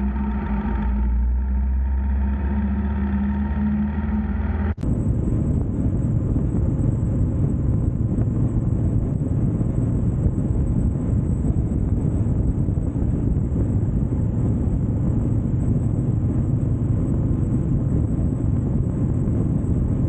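Motorcycle engine running steadily; about five seconds in it cuts suddenly to a loud, even rumbling rush of wind and road noise, as from riding at speed.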